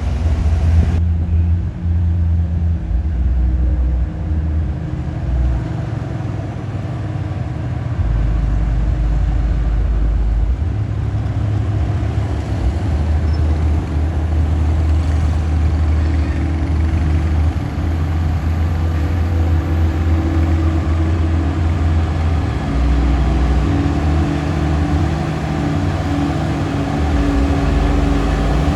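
Heavy truck's diesel engine running steadily with a low rumble, its low tones shifting every few seconds.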